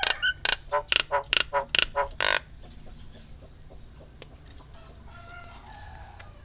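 Nias hill myna calling: a fast run of loud, harsh notes, about four or five a second, ending in a longer note about two and a half seconds in, followed by much softer calls.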